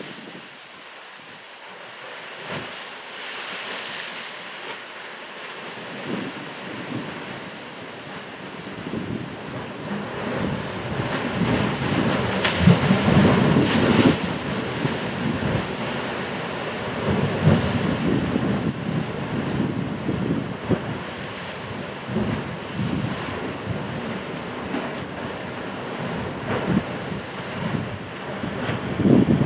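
Sea surf surging into a narrow channel between rocks and bursting up in spray: a rushing, splashing wash that swells to its loudest about halfway through, surges again soon after, and splashes once more near the end.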